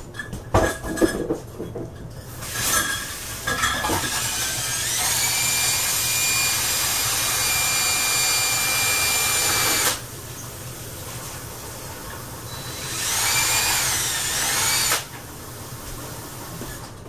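A small electric motor spins up with a rising whine, runs steadily for several seconds and cuts off suddenly. A few seconds later it runs again briefly with a wavering pitch.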